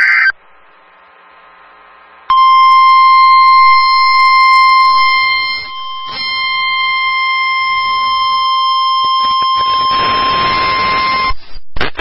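NOAA Weather Radio test signal: a final SAME data burst ends just after the start, then after a short pause the steady 1050 Hz warning alarm tone that switches on weather-alert receivers sounds for about nine seconds. Static hiss rises under the tone near the end before it cuts off.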